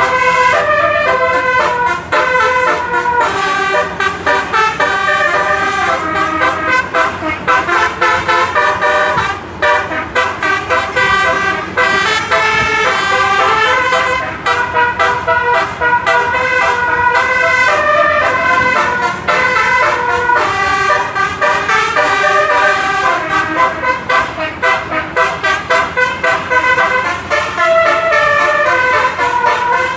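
A bus's 18-note telolet air horn played non-stop, running through quick tune-like phrases of changing multi-tone notes.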